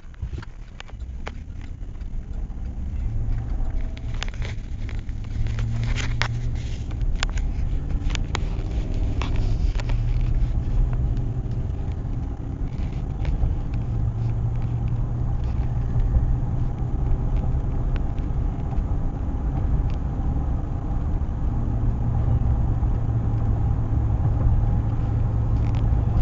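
Inside a moving vehicle's cabin: steady low engine and road rumble, building over the first few seconds as it picks up speed, then holding steady. A few scattered sharp clicks fall in the first ten seconds or so.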